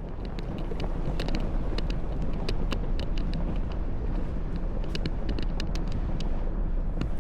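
Jeep Gladiator driving slowly along a rough dirt trail: a steady low rumble with frequent sharp clicks and knocks throughout.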